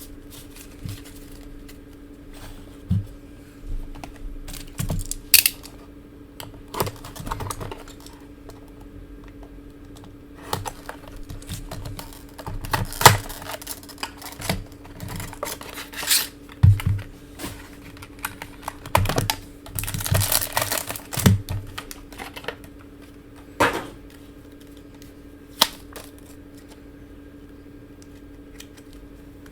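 Trading cards being handled and flipped through: irregular clicks, snaps and rustles of card stock, over a steady low hum.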